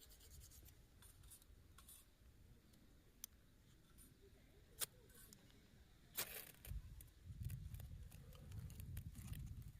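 Ferrocerium fire-starter rod being scraped with a striker: faint scratching strokes, with two sharp strikes about five and six seconds in. A low rumbling noise follows in the last few seconds.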